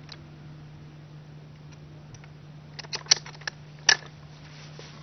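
A steady low hum, with a handful of sharp clicks and knocks about three to four seconds in.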